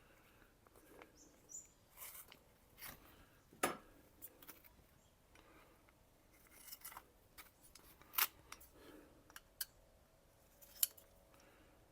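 Automotive masking tape being handled and worked into strips at a bench, with short crisp snips and rustles and a few sharper clicks, the loudest about a third of the way in, two-thirds in and near the end.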